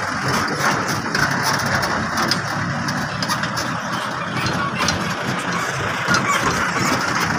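Diesel dump truck engine running steadily as the truck drives slowly past close by, over the continuous drone of heavy earthmoving machinery.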